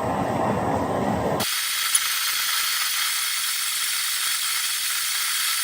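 DIY foundry furnace running with a steady low roar that switches abruptly, about a second and a half in, to a steady high hiss.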